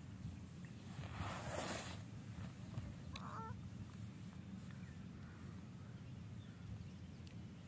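Quiet open-air ambience with a steady low rumble of wind on the microphone, a brief rustling hiss about a second in, and a single short squeak about three seconds in.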